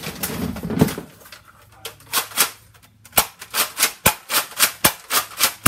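Nerf blaster firing foam darts in quick succession: sharp pops and clicks, a few at first, then a fast string of about five a second over the last couple of seconds.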